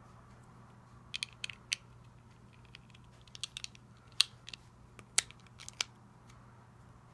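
Grey LEGO plates being pressed together by hand: a series of sharp plastic clicks and snaps in small clusters, the loudest about four and five seconds in.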